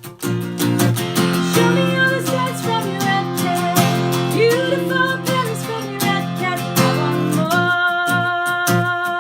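Acoustic guitar and voice performing a song. Strummed chords settle into held chords under a wordless, gliding sung melody, and a long note is held near the end.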